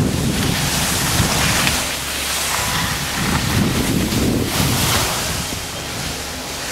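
Wind rushing over the microphone of a moving skier, mixed with the hiss of skis sliding over snow, swelling and fading a few times.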